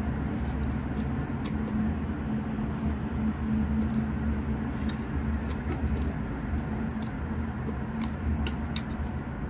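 A steady low hum runs under faint, scattered clicks and ticks of eating and cutlery on a plate, more of them near the end.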